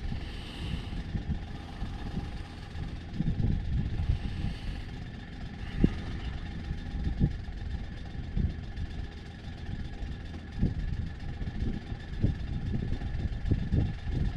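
Sailboat's auxiliary engine running steadily while motoring: a steady hum under an uneven low rumble, with a few soft thumps.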